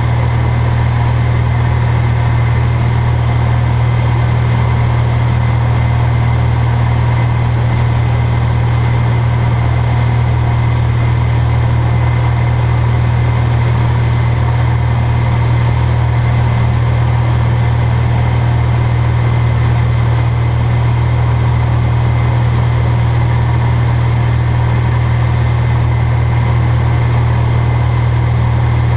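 Single piston engine and propeller of a light plane running steadily in flight, heard from inside the cockpit as a loud, even, deep drone.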